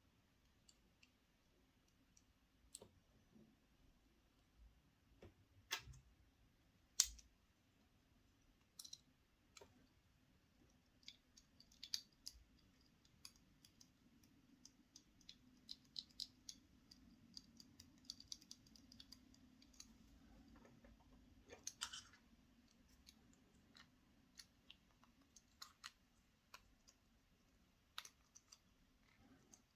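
Quiet, scattered clicks and light crackling of hands handling a chocolate surprise egg's wrapper and small plastic toy parts, busier through the middle, over a faint low hum.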